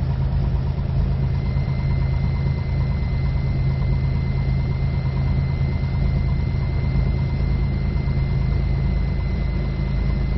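Cessna 182 Skylane's piston engine and propeller running steadily, heard inside the cockpit, with a thin steady high-pitched whine over the drone.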